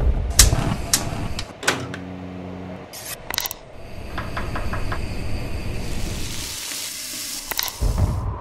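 Gas fryer sounds: a few sharp clicks and knocks, a short low hum, and a quick run of about five clicks as the thermostat dial is turned. Then comes a steady hiss of gas burner flames that grows brighter for several seconds, ending in a couple of clicks and a low thump.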